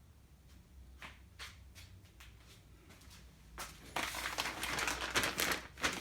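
Hands-on handling noise: scattered light clicks and taps, then a dense run of rustling with rapid clicking from a little before four seconds in.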